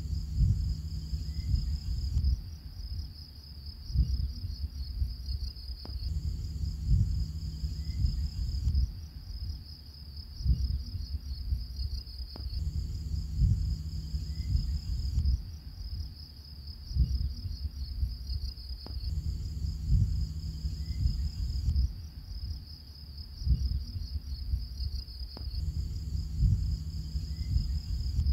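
Looped background track of crickets chirping in a steady high trill over low, irregular pulses, the whole pattern repeating about every six and a half seconds.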